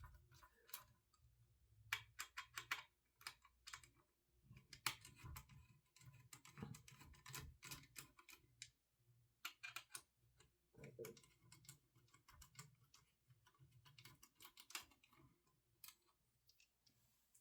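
Faint, irregular clicking and ticking of a small Allen key working the screws out of a GTX 980 Ti graphics card's cooler, with small metal parts being handled.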